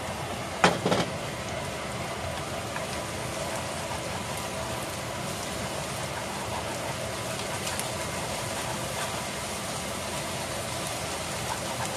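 Beaten egg with asparagus and bacon sizzling steadily in a frying pan over raised heat as it is stirred with chopsticks. There are a couple of sharp knocks of the chopsticks against the pan about a second in.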